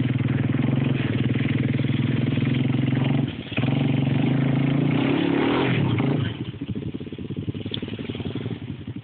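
ATV engine revving hard and held under load as one ATV strains to tow another out of a deep ditch. The throttle drops off briefly about three seconds in, comes back on with the revs rising and falling, then the engine settles to a lower, quieter running a little after six seconds in.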